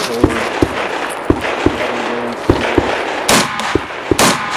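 A string of rifle shots fired during a practical-shooting stage, about eight sharp cracks, often in quick pairs, with two longer, louder bursts near the end.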